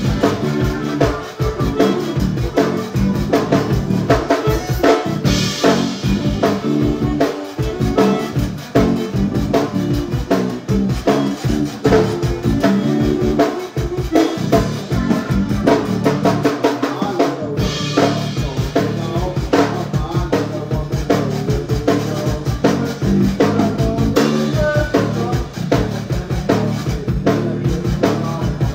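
A live zydeco band playing, with the drum kit keeping a busy, steady beat of kick, snare and rimshots under the band's pitched instruments.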